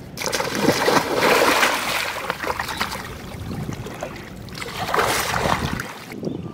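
Water splashing and sloshing as a man moves through a shallow, muddy pool, in two bouts: one starting just after the beginning and another about five seconds in.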